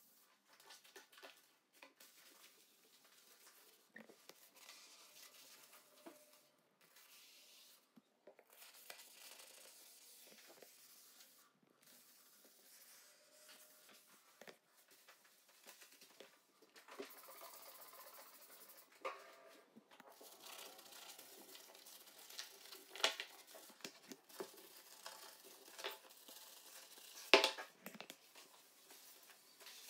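Household items being handled: scattered light clicks and knocks with patches of rustling, and two sharper knocks near the end.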